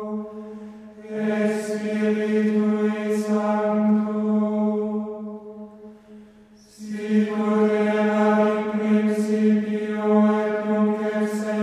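Background music of slow vocal chanting held on one steady note, in long phrases; one phrase fades out about six seconds in and the next begins a moment later.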